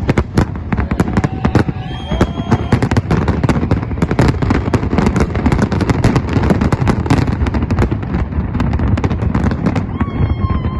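Fireworks display: a dense, fast barrage of bangs and crackles from many shells bursting, with a few short whistling tones about two seconds in. Near the end the barrage thins out and a wavering tone starts.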